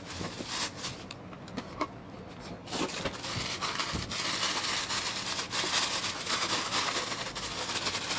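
Thin plastic bags crinkling and rustling as small speaker cabinets are unwrapped by hand, with a few light knocks as they are handled. The crinkling grows busier about three seconds in.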